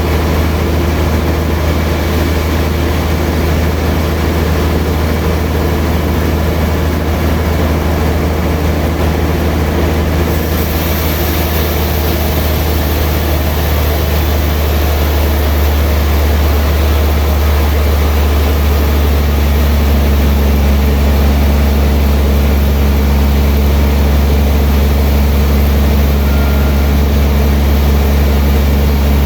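Sawmill machinery running steadily, a loud low hum with steady tones. A high hiss joins about ten seconds in, and the pitch of the hum shifts around two-thirds through.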